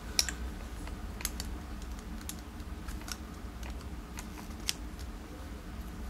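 Small scattered clicks and taps of a brass padlock core and a small hand tool being handled, about one a second, with one sharper click late on, as work starts on taking off the core's retaining clip.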